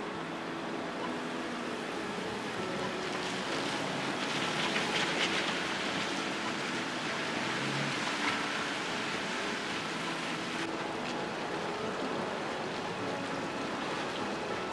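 Traffic on a rain-wet city street: a steady hiss of tyres on wet road, swelling as a vehicle passes about four to six seconds in.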